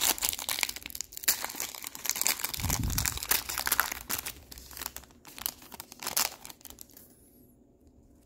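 A trading-card pack's foil wrapper being torn open and crinkled by hand, a dense crackling that dies away about six seconds in.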